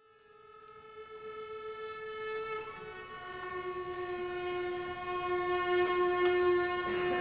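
Viola bowing long held notes, swelling up from silence and growing steadily louder. About three seconds in it moves to a slightly lower note, and a second, higher note then sounds with it.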